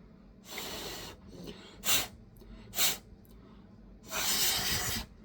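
Bursts of blown air hissing to clear dust from inside the opened laptop: a half-second blast, two short sharp puffs, then a longer blast of about a second.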